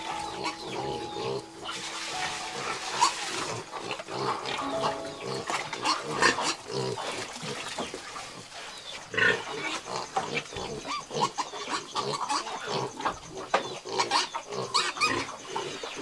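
A crowd of piglets grunting and squealing together at feeding time, a busy jumble of short calls.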